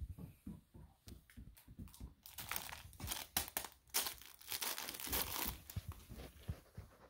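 Soft low knocks, then from about two seconds in a puppy rummaging in a cloth-lined basket of toys: a busy run of crinkling and rustling with sharp crackles.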